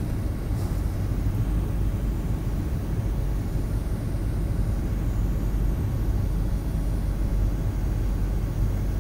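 Airliner cabin noise on the approach to landing: a steady low rumble of the engines and rushing air heard inside the cabin.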